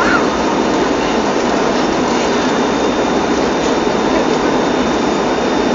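Steady cabin noise inside an ATR 72 in flight: the drone of its twin turboprop engines and propellers mixed with the rush of air, with a faint high steady whine above it.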